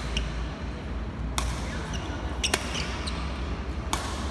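Badminton rackets striking a shuttlecock in a doubles rally: three sharp cracks about a second to a second and a half apart, echoing in a large hall.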